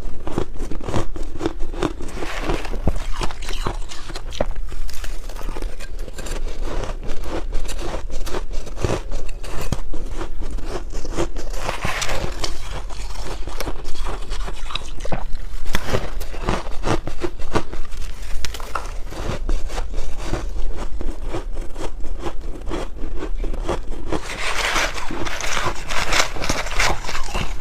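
Close-up biting and chewing of crunchy, powdery freezer-frost ice: a steady, dense run of crackling crunches, louder near the end.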